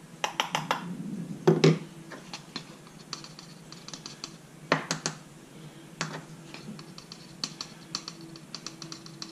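A coffee scoop scraping ground coffee and tapping against the espresso portafilter basket: a run of small irregular clicks and scrapes, with a few louder knocks near the start and again about five seconds in.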